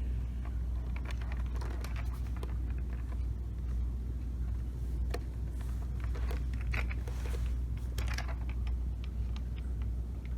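Scattered small clicks and rustles of a plastic drone controller being handled and turned over, over a steady low hum.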